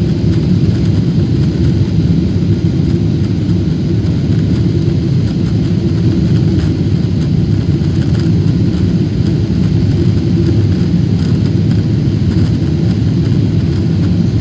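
Airliner cabin noise: the jet engines and rushing air make a steady, loud, low rumble that is heard from inside the passenger cabin.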